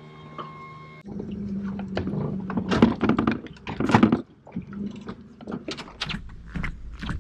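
Knocks, thuds and clatter of gear being handled on a boat deck, over a low steady hum. The two loudest thumps come a little before and after the middle.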